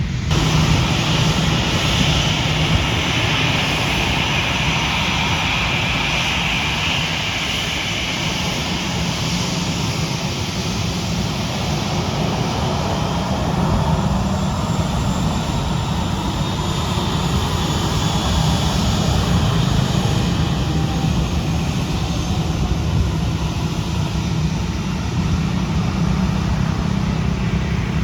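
Airliner engines running with a loud, steady roar, and a high whine that fades over the first ten seconds or so.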